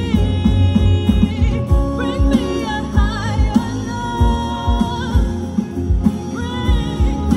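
Amplified live band playing a song: a sung lead vocal with vibrato over guitars, bass, keyboard and a steady drum beat.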